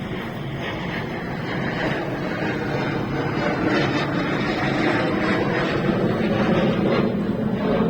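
Jet engine noise from the Suryakiran team's Hawk jet trainers flying overhead: a steady rushing rumble that grows gradually louder.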